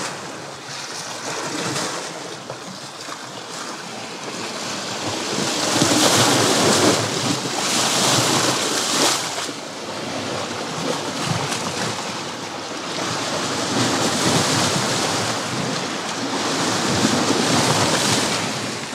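Ocean swell surging and washing against the rocks, swelling louder and easing back every few seconds.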